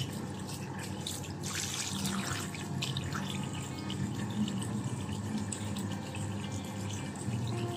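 Water running steadily from a bathroom sink tap onto a kitten being washed under the stream, with a louder splash about two seconds in.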